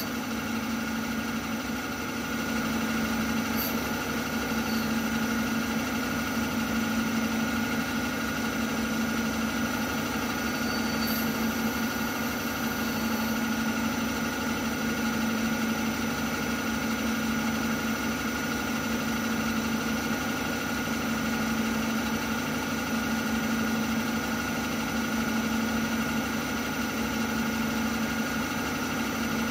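CNC milling machine's spindle running steadily at speed, a constant hum with a higher whine, while the mill turns a workpiece held in the spindle against a fixed lathe tool. A couple of brief faint high chirps come around four and eleven seconds in.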